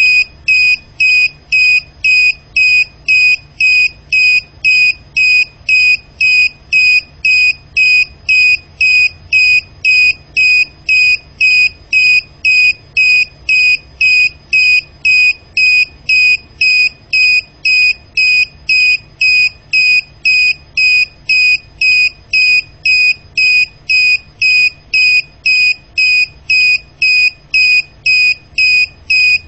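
Piezo buzzer on a low-voltage alarm module beeping loudly and rapidly, about two short high-pitched beeps a second. The alarm has tripped with the supply voltage down to its 9.8 V set point, and it stays latched on even as the voltage climbs back toward 10 V, until power is switched off and on.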